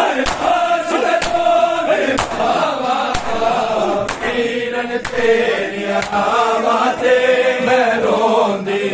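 A crowd of men chanting a Punjabi noha together in long held lines, with the sharp slaps of hands striking bare chests (matam) coming about once a second.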